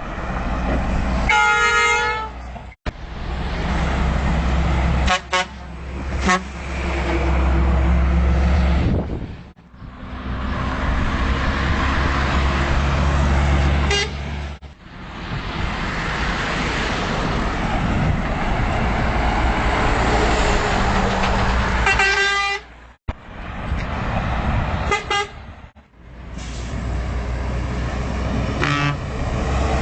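Trucks passing with loud engine and road noise, sounding their horns in several short blasts, the longer ones near the start and about three-quarters through. The sound breaks off abruptly several times between separate passes.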